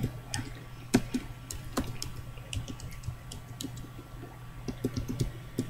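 Slow, irregular typing on a computer keyboard: single keystroke clicks spaced unevenly, a few each second.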